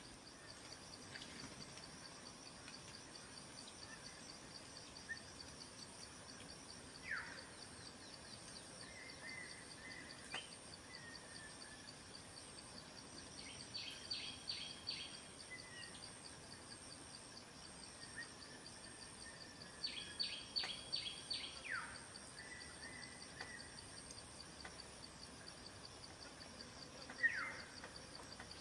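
Forest ambience: a steady high insect drone with a fine pulse throughout, and scattered short bird calls over it, including a few quick down-slurred notes and two short rapid runs of high notes.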